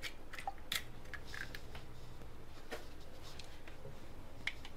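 A few faint, scattered clicks and taps as an egg is broken open by hand and dropped into a steel mixer-grinder jar.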